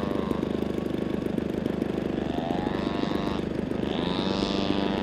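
Radio-controlled aerobatic model airplane flying, its engine and propeller running with a buzzing note whose pitch rises and falls twice as it manoeuvres and passes low.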